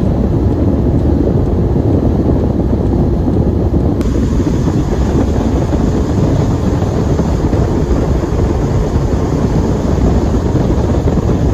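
Strong wind buffeting the microphone aboard a small motorboat under way, with the boat's engine and water noise beneath it.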